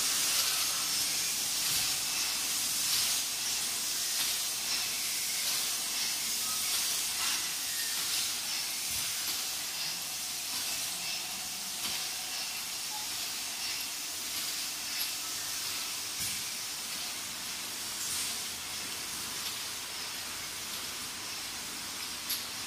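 Automatic bottle filling and capping line running: a steady hiss, with faint clicks now and then.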